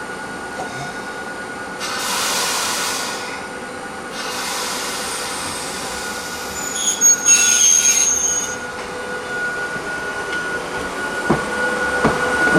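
Hakone Tozan Railway electric train running, its wheels squealing with a thin high note about seven seconds in, over bursts of hissing noise and a steady hum, with a couple of sharp knocks near the end.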